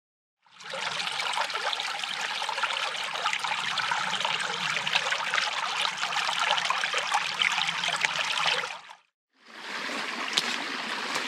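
Small forest creek flowing and trickling, a steady rush of running water. It starts about half a second in, breaks off briefly near the end and comes back.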